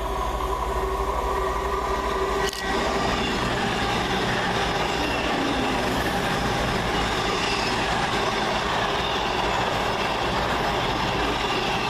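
Two coupled Class 221 Super Voyager diesel-electric multiple units running along the platform line with steady engine and wheel noise, getting a little louder over the first few seconds. There is a brief dropout about two and a half seconds in.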